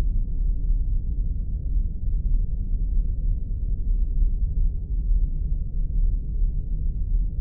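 Spaceship engine-hum sound effect: a steady deep rumble sitting in the low bass, with a few faint scattered ticks above it.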